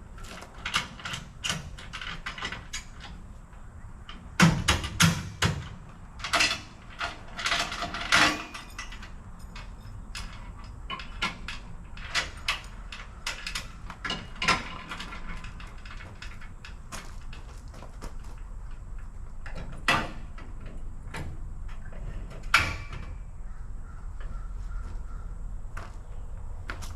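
Irregular knocks, clanks and thuds of gear being handled and loaded, some in quick runs. The loudest cluster comes about four to eight seconds in.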